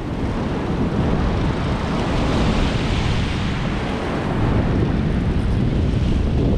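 Wind buffeting the microphone in a steady low rumble, over the wash of surf on a beach.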